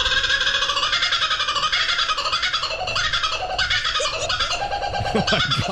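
Recording of a laughing kookaburra giving its laugh call: a fast run of repeated cackling notes.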